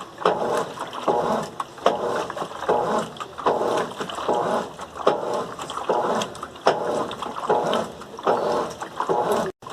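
Colormaq LCA11 top-loading washing machine agitating a load of wet bed and bath linens, the water sloshing in regular strokes about one and a half times a second. The sound cuts out for an instant near the end.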